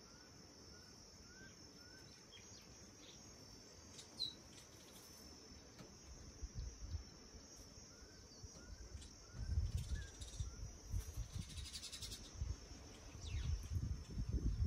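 Outdoor daytime ambience: a steady high insect buzz, with a small bird calling a string of short repeated chirps, about two a second, near the start and again in the middle. From a little past halfway, low rumbles and bumps come in on the microphone.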